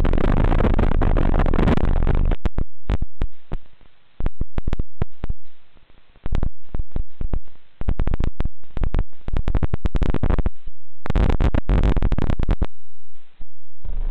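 Harsh static hiss from an analog FPV video receiver's audio channel. It is steady at first, then from about two seconds in it breaks into rapid on-off crackles with short silent gaps, and a denser stretch of hiss comes near the end, as the downed quad's video link cuts in and out.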